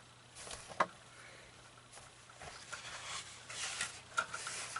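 Handling noises from assembling an animatronic Halloween prop: a single sharp click about a second in, then rustling.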